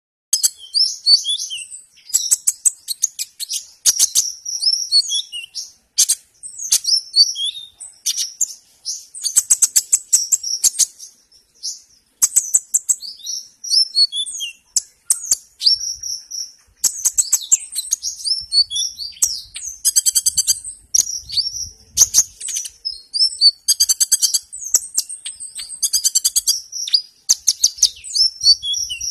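Male Van Hasselt's sunbird singing a long, high-pitched song of quick twittering notes and rapid chattering trills, broken by short pauses.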